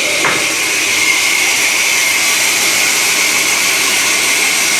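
Sawmill saw machinery running: a loud, steady high hiss.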